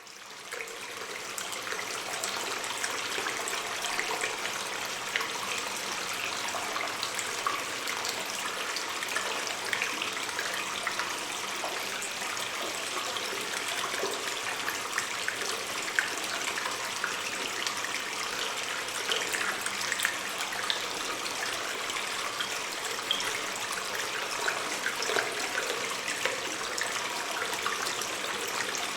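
Cave ambience of a small water stream: a steady trickling rush with many small splashes and drips, fading in over the first second or two.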